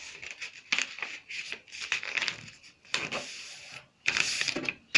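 A sheet of paper being folded and creased by hand: a series of short rustling and rubbing strokes, the longest and loudest about four seconds in.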